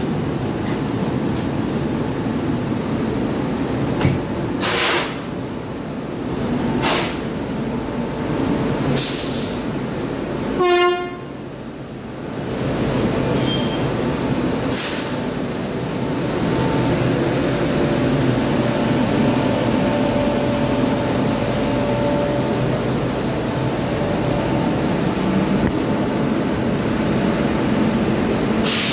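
Electric locomotives standing at a platform with their machinery running steadily. There are a few sharp metallic clanks and a short horn toot about eleven seconds in.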